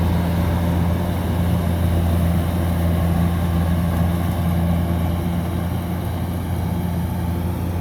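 Kubota DC-105X combine harvester's diesel engine running steadily under load while cutting and threshing rice, a constant low drone.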